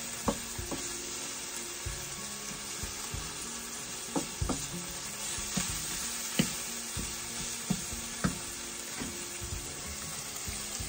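Tomatoes and onions sizzling as they sauté in a stainless steel pot, with a wooden spatula stirring and knocking sharply against the pot now and then.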